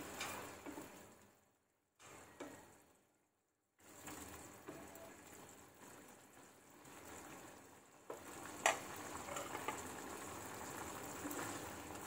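Manchurian sauce bubbling at the boil in a saucepan as fried vegetable balls are dropped in and stirred, with one sharp clink of the spoon against the pan about two-thirds through. The sound cuts out twice briefly early on.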